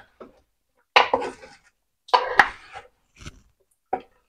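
Two wooden spoons tossing raw chicken, potato slices and peppers in a stone-coated metal roasting pan: four separate bursts of knocking and scraping about a second apart.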